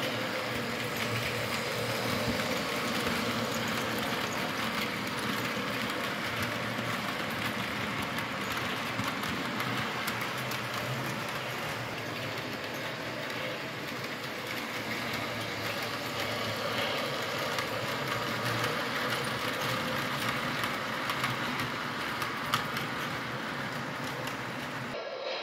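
O-scale model train running on three-rail track: a steady rumble of wheels and motor with a faint hum and light clicks.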